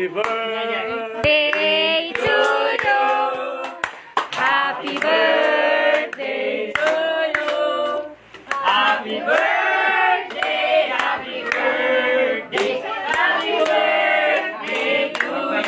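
A group of people singing a birthday song together, with scattered handclaps.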